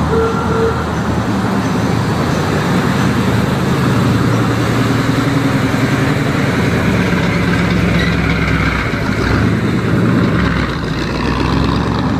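Car engines running steadily at low revs, with the engine note shifting slightly as the cars idle and move slowly.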